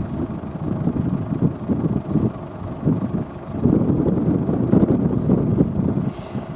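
Case IH Puma 185 CVX tractor running, heavily overlaid by wind buffeting the microphone in uneven gusts.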